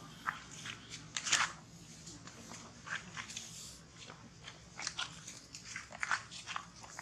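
Irregular, close gritty crunches and scuffs, a few each second.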